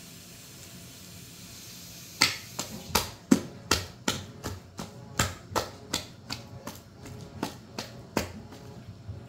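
A hand beating thick bara batter in a stainless steel bowl, slapping the dough down again and again. The slaps start about two seconds in and come in a steady rhythm of about three a second.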